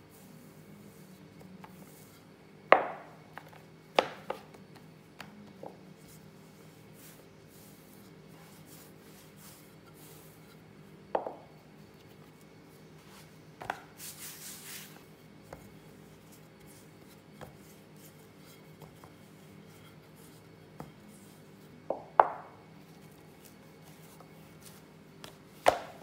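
Wooden rolling pin knocking and thudding against a silicone pastry mat as puff pastry dough is rolled out, a handful of sharp knocks at irregular intervals. About 14 s in, a brief soft brushing as flour is swept off the dough by hand.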